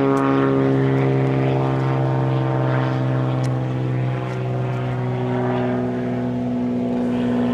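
Propeller airplane flying over, its engine a steady pitched drone.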